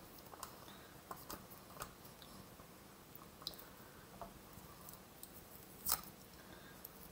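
Faint handling noises of cardstock, a metal cutting die and a piece of sticky-note tape being pressed down to hold the die in place: light rustles and scattered small clicks, with one sharper click about six seconds in.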